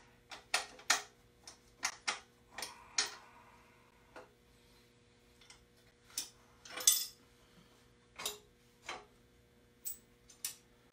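Irregular metallic clicks and clinks of hand tools and steel accessory brackets being worked loose at the front of a Ford 351 Cleveland V8, with the loudest clink about seven seconds in.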